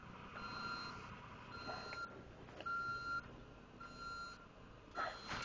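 Distant vehicle back-up alarm beeping steadily, about one high beep a second, with a short rustle near the end.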